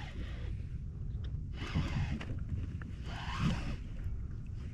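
Wind buffeting the microphone in a steady low rumble, with two short rushes of noise about two and three and a half seconds in.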